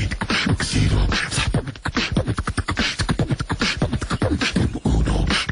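Human beatboxing: a fast, unbroken run of mouth-made drum sounds, with deep kick-like thumps under crisp hissing and clicking strokes.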